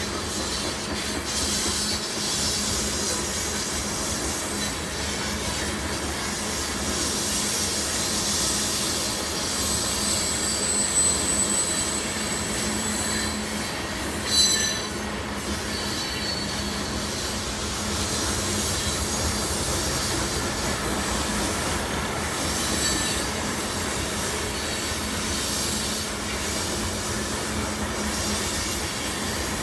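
A loaded coal train's cars rolling past on steel wheels, a steady rumble with high-pitched wheel squeal coming and going. A single sharp metallic sound stands out about halfway through.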